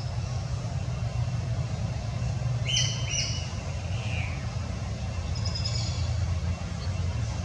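A few short, high-pitched squeaky calls, mostly clustered about three seconds in with a fainter one later, over a steady low rumble.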